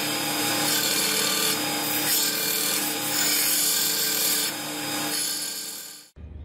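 Belt sander grinding the steel head of a cross peen hammer, with sparks flying: a steady, loud grinding hiss over the hum of the running motor. It cuts off suddenly near the end.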